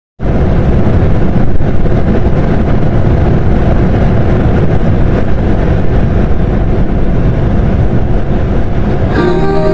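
Strong wind blowing hard across the microphone, a loud rumbling noise heaviest at the bottom, cutting in suddenly after a moment of silence. Piano music comes in near the end.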